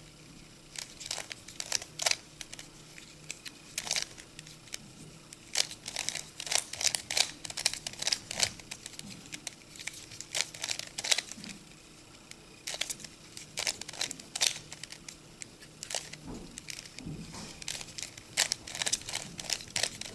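Plastic Rubik's Cube layers being turned quickly by hand: irregular runs of sharp clicks and clacks, with a few short pauses.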